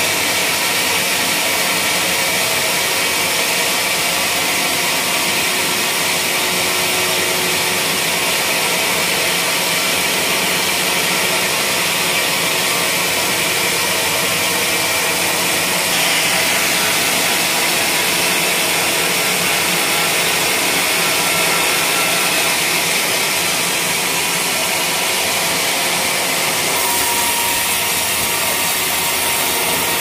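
Band sawmill blade cutting lengthwise through a wadang (Pterospermum javanicum) log, a loud, steady sawing noise over the running mill, its tone shifting slightly about halfway.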